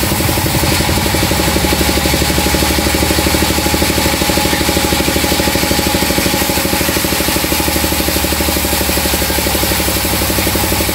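Log band saw mill running steadily, its blade cutting lengthwise through a log: a loud, even machine drone with a fast regular pulse.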